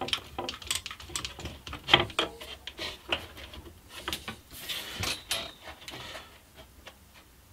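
One-handed quick-release trigger bar clamp being squeezed tight onto an MDF bracket and board, giving a run of irregular clicks and knocks, with a brief scraping rustle about halfway through.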